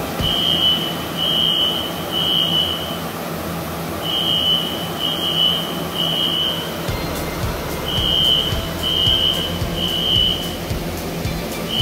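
Fire alarm sounder beeping at a high pitch in repeated groups of three, the temporal-three evacuation pattern, which signals that the hangar's high-expansion foam system has been triggered. Beneath it is a steady rushing noise from the foam generators discharging.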